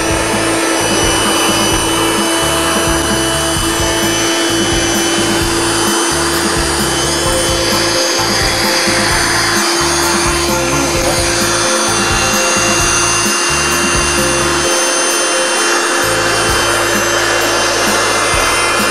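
Outbound air bed's electric air pump running steadily with an even hum, blowing air into the air mattress through its valve.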